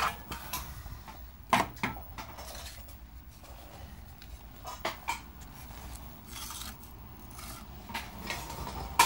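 Hand tools and small parts clicking and clattering on a stone workbench top as they are handled and moved about: a few separate sharp clicks, the loudest at the very end.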